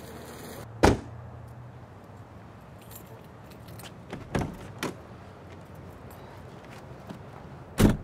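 A car's door and keys: a sharp thud about a second in, a quick run of clicks and key jangles around the middle, and the driver's door shutting with a solid thud near the end.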